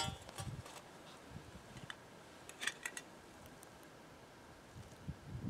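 A metal canteen cup clinks as it is set down, then a few faint sharp ticks about two and a half seconds in and some dull low thumps near the end.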